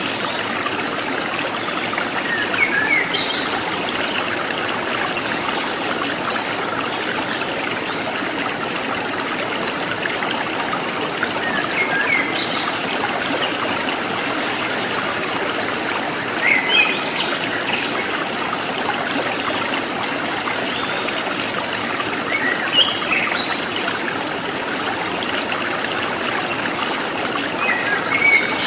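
A stream babbling and trickling steadily, with short bird chirps every few seconds.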